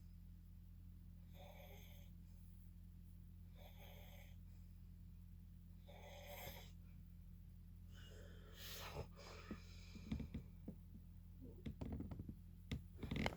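Faint, wheezy snoring breaths of a sleeping person, four short breaths about two seconds apart. Near the end they give way to rustling and knocks of movement.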